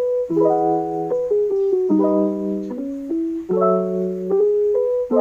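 Background music, with chords that change about every second.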